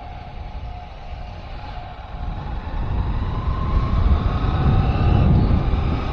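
Vehicle running along the road with wind buffeting the microphone, the low rumble growing louder about two seconds in.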